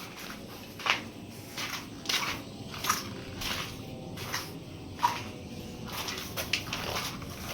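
Footsteps on a hard floor, about ten uneven steps at a slow walking pace, each a short scuffing stroke.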